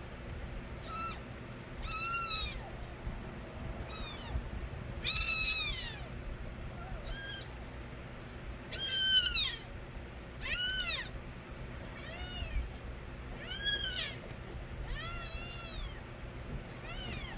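Young stray kittens meowing over and over: about eleven high-pitched cries, each rising and then falling in pitch, the loudest about halfway through.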